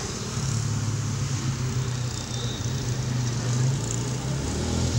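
Outdoor road traffic: a steady low engine rumble with an even background hiss.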